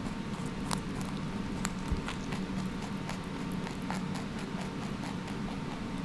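Wood fire crackling as the wood catches alight: irregular sharp snaps and pops, one or two a second, over a steady low rumble.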